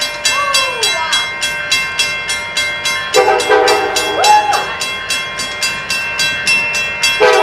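Union Pacific locomotive air horn sounding one blast of about a second and a half some three seconds in, then a second blast starting near the end, over the steady clickety-clack of a passing train's wheels over rail joints, about four clicks a second.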